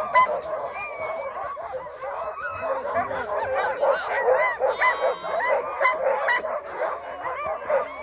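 A yard full of chained sled dogs barking and yelping all at once: many short, overlapping calls from many dogs with no let-up, the excited din of a sled-dog camp.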